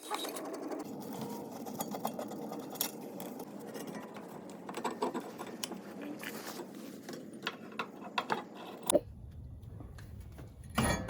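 A tool working the brake caliper bracket bolts on a Subaru front hub gives a steady mechanical rattle with scattered metallic clicks. The sound changes abruptly to a low rumble about nine seconds in.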